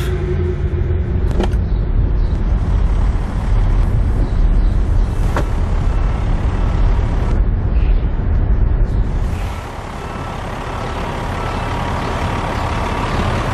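Low, steady rumble of a motor vehicle running, with a couple of faint clicks; the rumble drops somewhat in level about two-thirds of the way through.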